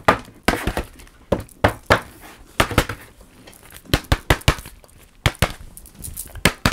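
Sharp, irregular taps and clicks, a few a second, from a stiff card package being handled and tapped.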